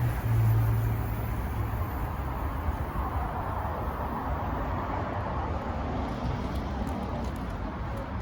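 Road traffic: cars passing on a busy road, with a low engine hum strongest near the start and a vehicle passing by in the middle.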